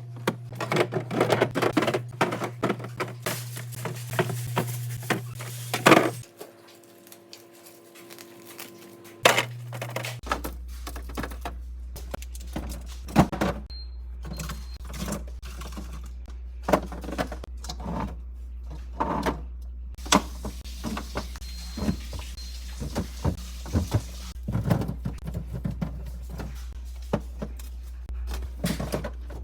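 Groceries and containers being handled and set down: a long run of taps, clatters and knocks over a steady low hum.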